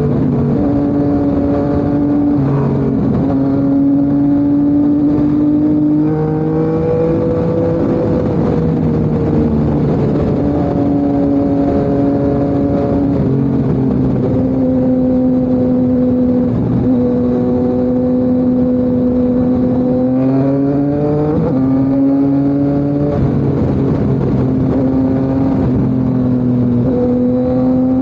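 Yamaha MT-09's crossplane inline-three engine running through an SC Project CRT exhaust. The engine note holds at moderate revs for long stretches, drifting up and down, with quick rises in pitch about twenty seconds in and again near the end.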